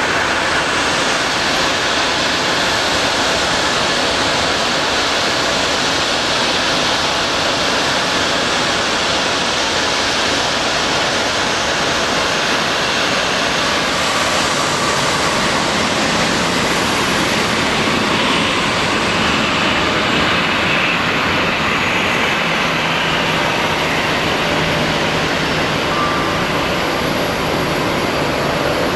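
Airbus A320-211's CFM56 jet engines running as the airliner slows on the runway after landing and taxis off. A steady rushing noise, with a high whine coming through past the middle.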